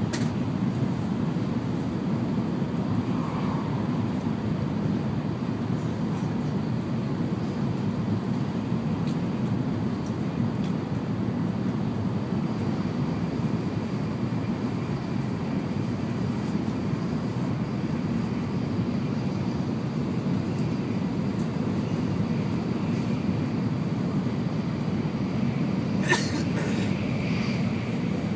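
Steady low rumble inside the passenger car of an N700 series Shinkansen running on the line. A single sharp knock, with a short clatter after it, comes about two seconds before the end.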